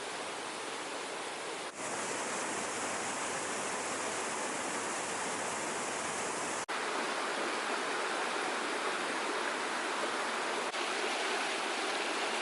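Creek water rushing steadily over small falls and cascades. Brief dips come about two, seven and eleven seconds in, where the rush changes slightly in tone.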